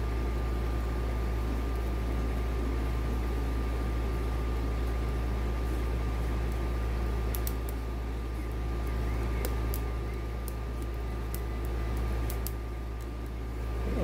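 A steady low hum with a faint thin whine over it. From about seven seconds in, a scatter of faint light ticks as a homemade short hook pick works the pins of a lock cylinder.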